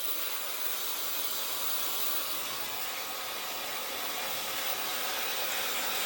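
1800 W ionic hair dryer with a brushless motor running and blowing air: a steady, even rush of air with no clear pitch.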